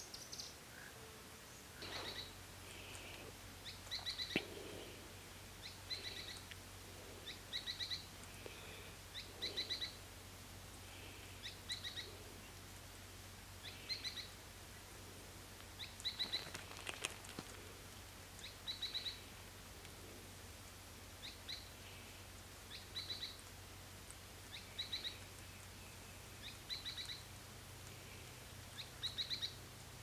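A bird repeats a short phrase of a few quick, high chirping notes about every two seconds, with a few faint clicks among the calls.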